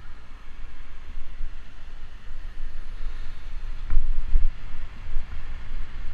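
Wind buffeting a bicycle-mounted action camera's microphone while riding, with the hiss and hum of cars in traffic alongside. A single knock about four seconds in.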